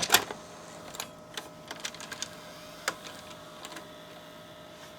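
Scattered sharp clicks and light plastic taps from hands handling the open VCR, two loud ones right at the start and fainter ones over the next few seconds, over a faint steady hum.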